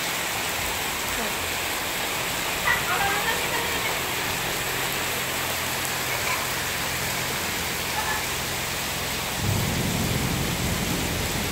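Heavy tropical rain pouring steadily onto a paved driveway and hedges, a dense unbroken hiss. A deeper low rumble joins it about nine seconds in.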